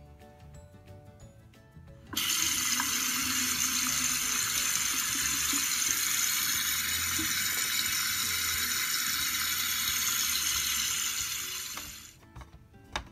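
Tap water running into a sink. It starts abruptly about two seconds in and fades out near the end, over quiet background music, with a few clicks near the end.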